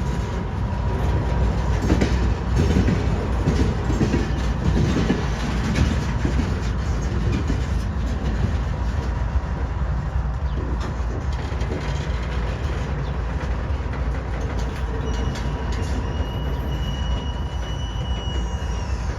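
Freight train rolling past with a continuous low rumble, its wheels clacking over rail joints in the first few seconds and a thin wheel squeal near the end.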